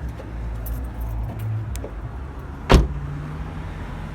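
Car running on the road, heard from inside the cabin as a steady low rumble with light clicks and rattles. A single sharp knock comes about two-thirds of the way through.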